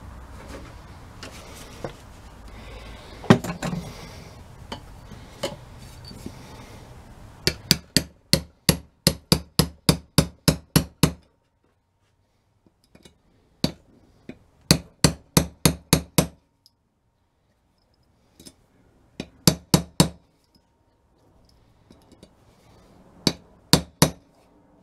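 Hammer striking a drift to drive a new bushing into the cast nose housing of a Weasel starter, in runs of sharp metallic blows, about three a second; the longest run of about a dozen comes early, with shorter runs after pauses. Before the hammering, parts are handled with a single knock.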